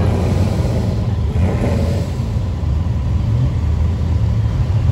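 Car engine running close by, a steady low rumble.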